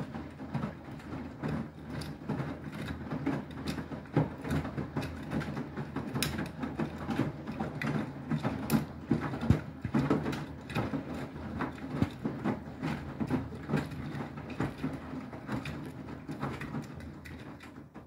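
Beko WTK104121W front-loading washing machine tumbling a wet load in the wash, its drum motor humming steadily under a rapid, irregular clatter of clicks and knocks. The sound fades near the end as the drum slows.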